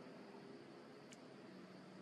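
Near silence: faint steady background hiss, with one faint short click about a second in.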